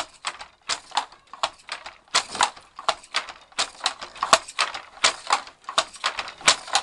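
Wooden fly-shuttle handloom clacking in a steady working rhythm, about two to three sharp knocks a second: the shuttle is jerked across by its cord into the shuttle boxes, and the beater knocks each new weft thread into the cloth.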